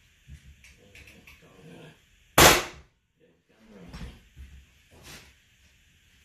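Pneumatic hardwood flooring nailer struck with a mallet, firing a cleat into the floorboard with a sharp bang about two seconds in and again right at the end. Fainter knocks come in between.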